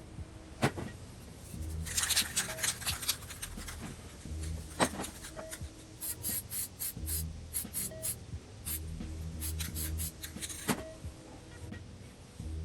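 Background music with a steady, repeating beat and recurring short notes, with many sharp clicks over it.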